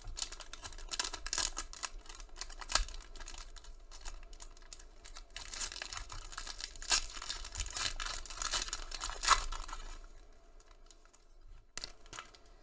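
A Panini Prizm basketball card pack's wrapper being torn open and crinkled by hand, a dense crackling with sharper rips, dying down about ten seconds in.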